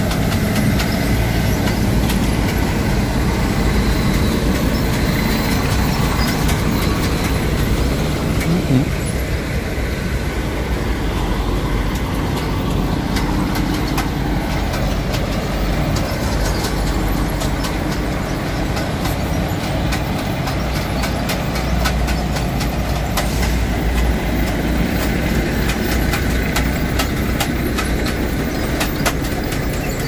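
Heavy diesel engines of a dump semi-trailer and a Unimog with a shoulder spreader running steadily at low speed as they lay gravel along the road edge, a constant low rumble with faint scattered clicks.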